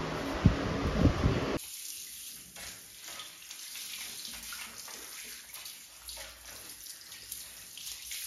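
Handheld shower head spraying water onto a wet puppy and a tiled floor: a steady hiss. A louder first second and a half holds two sharp knocks.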